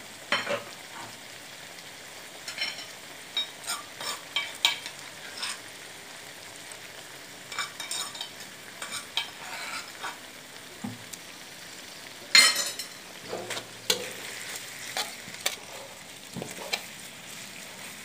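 Onion, tomato and pounded red chilli frying in oil in a metal wok with a steady sizzle, while a slotted metal spatula stirs with repeated scraping and clicking strokes against the pan; one louder scrape comes a little past the middle.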